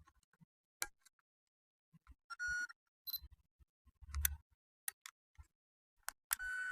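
Camera sounds: a series of sharp, separate shutter clicks, with a short electronic beep about two seconds in and another beep starting near the end, and a dull thump around four seconds in.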